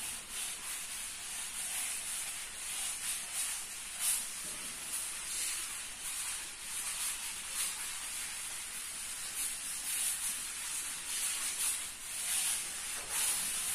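Blackboard duster wiping chalk off a chalkboard in a series of uneven back-and-forth strokes, a steady rubbing hiss.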